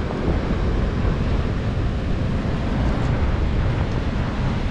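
Strong wind buffeting the microphone: a loud, steady, gusting rumble.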